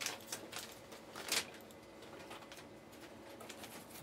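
Light clicks and ticks from trading cards and cardboard packaging being handled, with one short sliding rustle a little over a second in.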